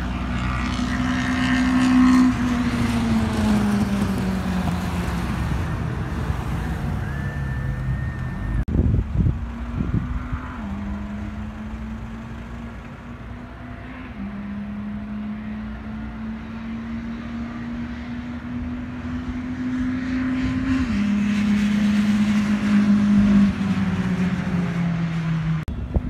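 Street-racing car engine running hard. Its pitch falls away, then climbs again with sudden steps up and down at gear changes, and falls again near the end. A few thumps come around nine seconds in.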